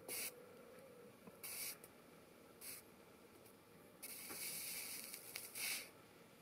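Soldering iron tip on a headphone speaker's wire terminal, the flux and solder sizzling in short faint hisses, about five of them, the longest lasting over a second from about four seconds in.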